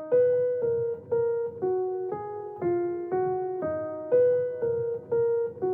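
Background music: a piano-like keyboard playing an even run of notes, about two a second, each note struck and then fading.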